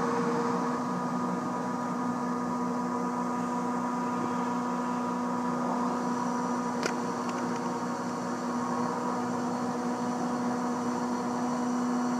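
Haas VF-4 CNC vertical mill cutting 304 stainless steel under flood coolant: a steady hum and whine of the spindle and cut over the hiss of coolant spray, with one sharp tick about seven seconds in.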